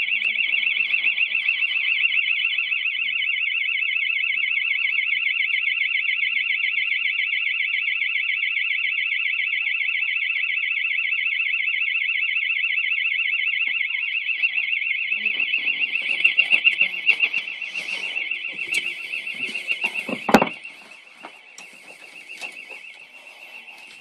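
House burglar alarm sounding continuously: a loud, high-pitched, rapidly pulsing tone. Over the last third come knocks and rustles, then a single loud thump, after which the alarm goes on much quieter.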